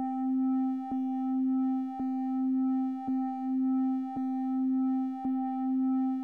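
Steady synthesized electronic tone, low-pitched with a few fainter higher tones above it, pulsed by a soft click and a brief dip in level about once a second: a 1 Hz audio pulse pattern.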